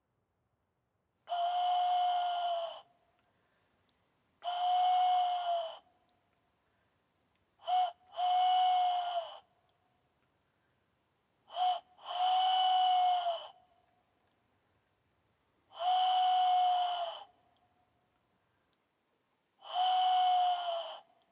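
Hand-turned wooden bird whistle blown in six long, breathy hoots, each about a second and a half, at one steady pitch that bends slightly up and then down. Two of the hoots start with a short blip just before them.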